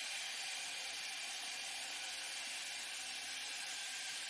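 Cylinder bed interlock sewing machine running steadily at high speed, a continuous hissing whir with no separate stitch beats.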